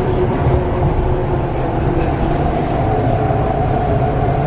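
MTR East Rail Line R-train electric multiple unit running between stations: a steady rumble of wheels on track with an even traction-motor whine, which rises slightly in pitch about three seconds in.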